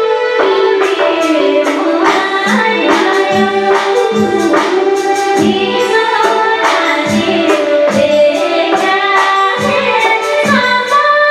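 A woman singing a Nepali song over instrumental backing, with a regular drum beat.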